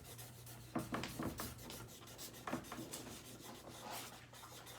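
Quick, irregular strokes of a drawing tool scratching across paper: someone scribbling and colouring in a picture.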